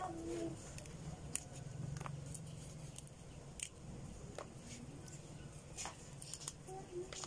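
Graham crackers being laid and pressed into a plastic food container: scattered light clicks and taps over a low steady hum.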